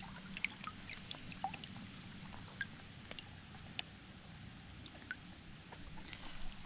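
Faint lapping of pool water with scattered small drips and splashes, stirred by a tiny puppy paddling while held at the surface.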